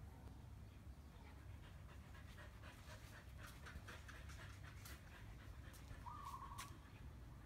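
Husky puppy panting quickly and softly, with a few faint clicks and a short high squeak about six seconds in.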